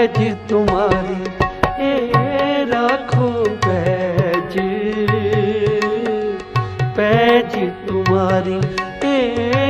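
Sikh kirtan music with harmonium and tabla: a wavering melody line runs over steady held chords and a regular low tabla pattern.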